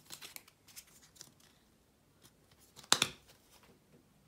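Pokémon trading cards being handled and sorted on a table: light clicks and rustles, then one sharp snap about three seconds in.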